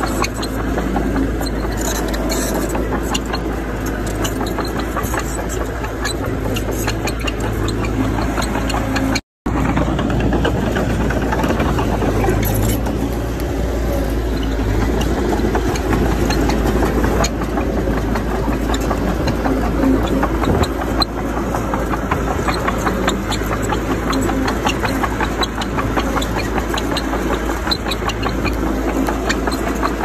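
Heavy earthmoving machinery's diesel engine running steadily, with scattered small clanks over it. The sound cuts out completely for a moment about nine seconds in.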